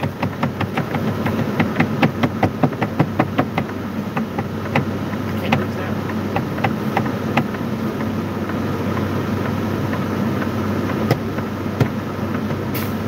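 Semi truck's diesel engine idling, heard from inside the cab. A run of sharp taps, about three a second at first, slows and fades over the first several seconds, and two more taps come near the end.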